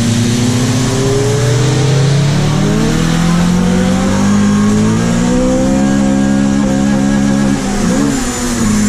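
Honda Civic hatchback engine running under load while driving. Its pitch climbs over the first couple of seconds and then holds, with a brief dip and wobble in pitch about eight seconds in.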